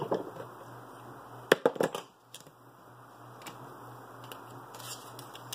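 Small tools and parts clicking and knocking against a workbench top: a few light clicks at the start and a quick cluster of sharp knocks about a second and a half in, then only a low steady hum.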